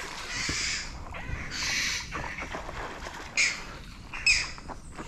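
A hooked fish thrashing and splashing at the water's surface in two bursts in the first two seconds, then two short, loud bird calls about a second apart.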